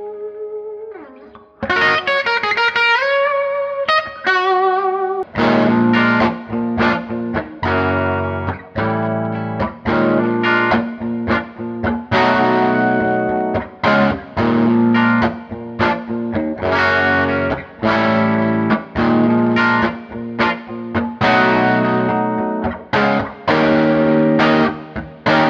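Gibson Les Paul Custom electric guitar played through a hand-wired Fender '57 Custom Twin-Amp reissue, turned up into a distorted, Plexi-like overdrive. A held note dies away, single notes with bends and vibrato follow, then from about five seconds in a riff of hard-hitting chords with short stops between them.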